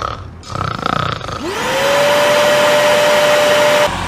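An electric appliance motor switching on: a whine rises quickly to a steady pitch over a loud rush of air. It cuts off suddenly just before the end.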